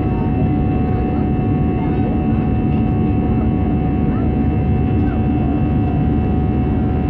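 Airliner's turbofan jet engine heard inside the cabin during the climb after takeoff: a steady, loud drone with a few constant tones over it.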